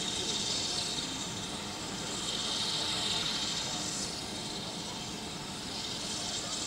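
BR Standard Class 9F steam locomotive venting steam: a steady hiss that swells and fades a few times.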